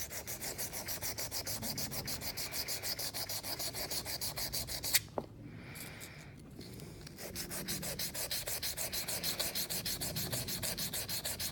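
Wet-and-dry sandpaper rubbed in quick short strokes, about six a second, against a hardened 440C stainless-steel juicer cutter to scour tannin build-up out of the tooth gullets. The strokes pause for a couple of seconds about five seconds in, with a single click, then start again.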